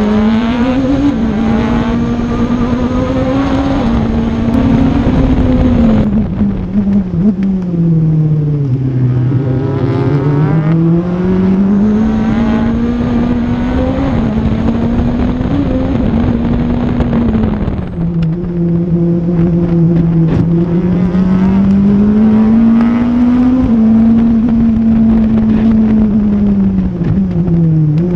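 Audi TT-R DTM race car's engine at speed, heard through a camera mounted on the car's bodywork. Its pitch climbs and falls over and over as the car accelerates and slows through the course, dropping lowest about nine seconds in and again around eighteen seconds in.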